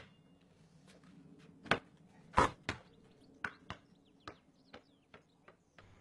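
A basketball hitting and bouncing on patio paving: a series of short sharp thuds, the loudest about two and a half seconds in, the later ones weaker and closer together.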